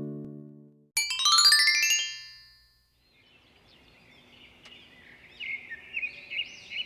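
Intro music: a strummed chord fading out, then about a second in a quick rising run of bright chime-like notes that rings out for about a second and a half. Birds then chirp, faint at first and clearer in the last two seconds.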